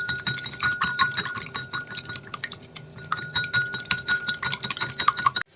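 Wire whisk beating egg and kefir in a bowl: a rapid, uneven run of light clicks as the wires strike the bowl's sides. It cuts off suddenly near the end.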